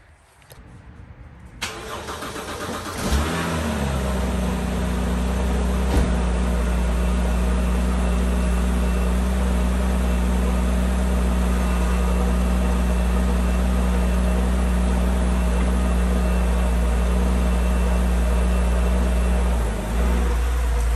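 BMW 328xi straight-six engine started: brief cranking, then the engine catches about three seconds in with a quick rev flare and settles into a steady idle.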